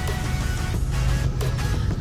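Background music: an electronic trap track with a heavy bass line and a steady beat.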